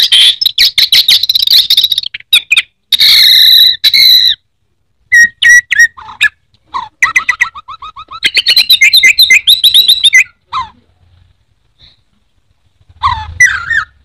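Orange-headed thrush singing a loud, rapid, varied song in long bursts, falling silent for about two seconds before a short phrase near the end.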